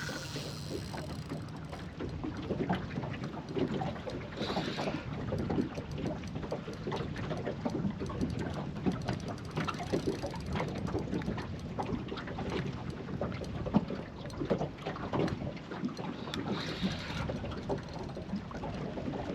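Small boat on the water, with waves slapping the hull, wind on the microphone, and irregular light knocks and clicks.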